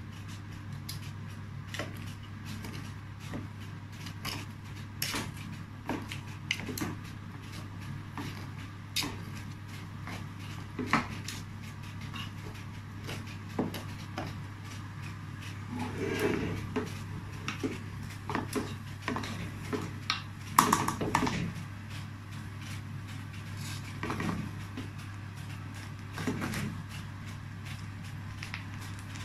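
Metal utensils turning cooked rice pulao in a pot: irregular clinks, knocks and scrapes against the pot, busier about two-thirds of the way through, over a steady low hum.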